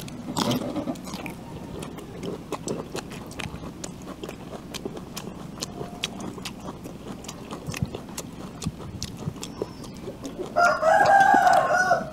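Close, crisp crunching and chewing of raw bamboo shoot and fresh vegetables: a steady run of small sharp clicks. About ten and a half seconds in, a rooster crows once for about a second and a half, the loudest sound.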